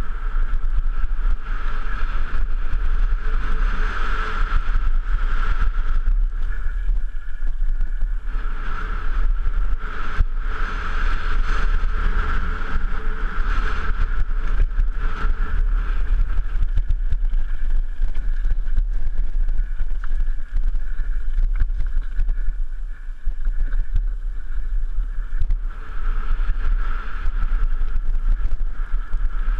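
Mountain bike descending a rough gravel and rock trail, recorded on a helmet-mounted camera: heavy wind rumble on the microphone, tyres crunching over loose stones, and frequent rattles and knocks from the bike over bumps. A steady high whine swells and fades throughout.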